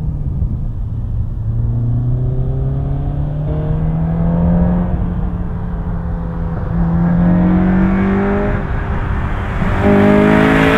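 2011 Honda Civic Si's 2.0-litre i-VTEC four-cylinder, fitted with an aftermarket header and exhaust, accelerating hard, its pitch climbing steadily for several seconds. A break about two thirds of the way through is followed by a renewed climb, growing louder and harsher near the end.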